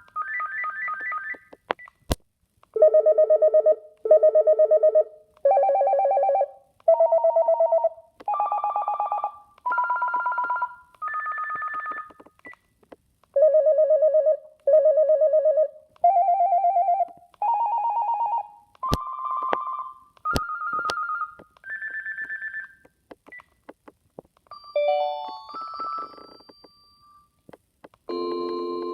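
Panasonic KX-TGM430B amplified cordless phone playing its ringtones: a pulsing electronic tone that steps up in pitch note by note, each note about a second long. The rising run plays twice, with a few sharp clicks in between. Near the end a shorter, faster tune plays, then another ringtone begins.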